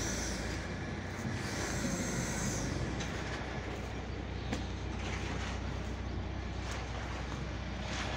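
Steady low machine drone, like an engine running, under an even outdoor noise, with a few faint clicks in the second half.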